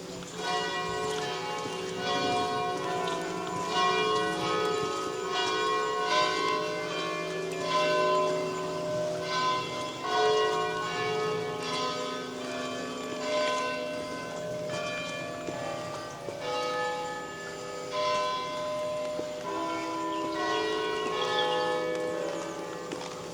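Church bells ringing, several bells struck in turn so that their tones overlap and ring on.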